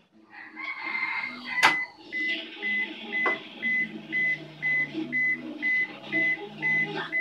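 A top-loading washing machine's control panel beeps: one longer beep, a sharp click, then short high beeps repeating about twice a second. A low hum sets in beneath the beeps about four seconds in.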